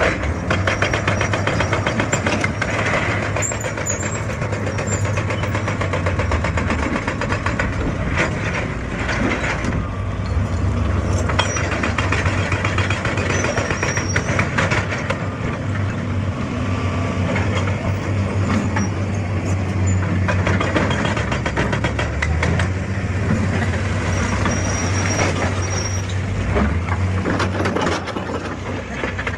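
Excavator's diesel engine running steadily under load, with dense irregular clattering and knocking over it.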